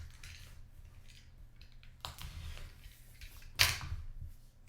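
Handling of a packed trading-card box and its contents: soft rustling and small clicks, with one sharp snap or knock about three and a half seconds in.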